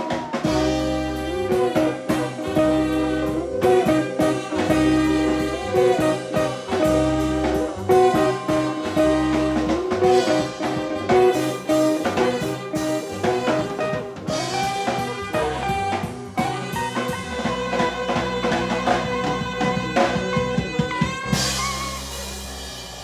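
Live band music: electric guitar and drum kit over a steady bass line, with melodic lines on top. Near the end the bass drops out and a flute comes in.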